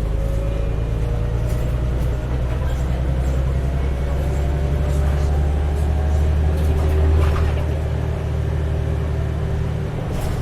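Heuliez GX317 LPG city bus heard from inside the cabin while under way: a steady low engine drone with a faint whine above it. The drone swells about seven seconds in and eases off near the end.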